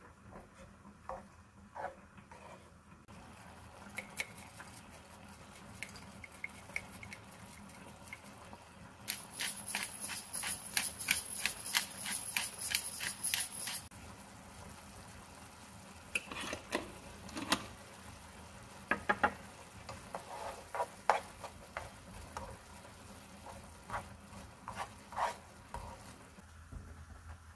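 Wooden spoon stirring a creamy sauce in a nonstick frying pan, with scattered scrapes and taps against the pan. About a third of the way in comes a run of quick clicks lasting about five seconds as a dry seasoning is added.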